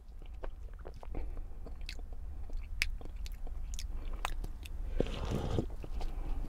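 A person sipping a hot eggnog latte from a paper cup: small wet mouth clicks and slurps, with a longer breathy swallow or exhale about five seconds in.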